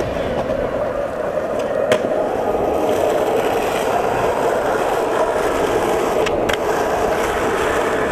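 Skateboard wheels rolling on asphalt: a steady rolling rumble, with two sharp clicks, one about two seconds in and one past the middle.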